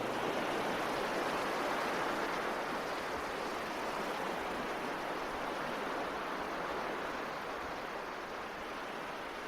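Steady, even rushing noise like running water or surf, easing slightly toward the end.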